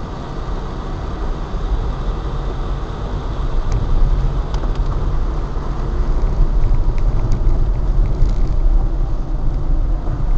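Road noise heard from inside a car driving on a wet road: a steady low rumble of engine and tyres with the hiss of tyres on wet asphalt, and a few faint ticks.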